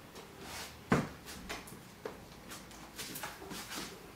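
Handling noise from an air rifle being picked up and raised to the shoulder: one sharp knock about a second in, then a few lighter clicks and knocks.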